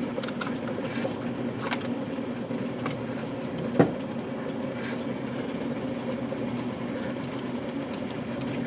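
Steady electric hum of O-scale model train equipment running, with scattered light clicks and one sharper click about four seconds in.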